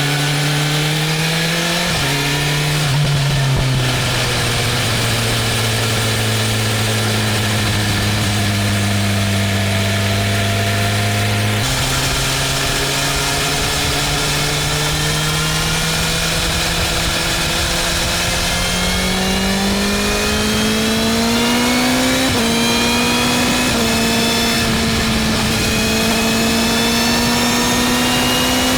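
BMW M1000R's inline-four engine on the move, holding steady revs for a while and then pulling with slowly rising revs. The pitch steps suddenly a few times where gears change.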